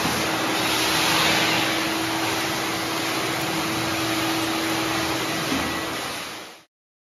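Wet/dry vacuum running with its wide floor nozzle drawn over wet tile, sucking up the wash water. It makes a steady rushing with a steady hum and fades out about six seconds in.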